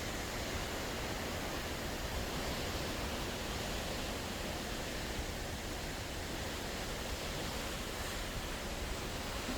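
Sea water rushing, a steady, even hiss with no separate wave crashes.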